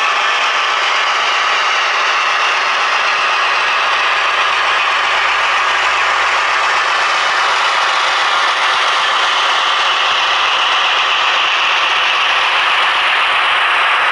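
Piko V 200 model diesel locomotive and its train running along model railway track: a steady mechanical whirr and rattle of motor, gears and wheels on the rails.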